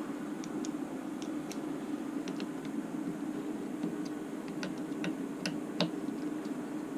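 Scattered light clicks and ticks from handling the T-Rex 600 helicopter's tail boom, frame and small hardware while trying to work the stuck boom loose, over a steady low hum.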